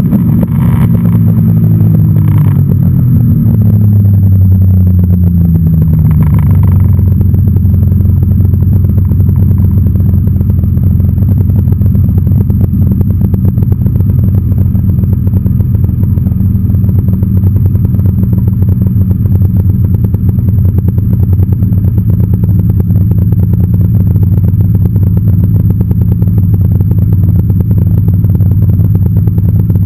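Snowmobile engine winding down from speed, its pitch falling over the first several seconds, then idling steadily, with a couple of brief knocks early on.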